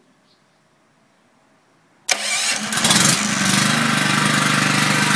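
Electric-start petrol generator starting on its own when the auto-start controller senses the battery bank has dropped to about 12.3 V. About two seconds in, the starter cranks briefly and loudly, then the engine catches and settles into a steady run.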